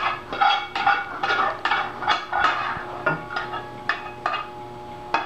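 A spatula scraping and knocking inside a saucepan as a thickened milk mixture is emptied into a stainless steel mixing bowl: repeated scrapes and clinks about two a second, with faint metallic ringing.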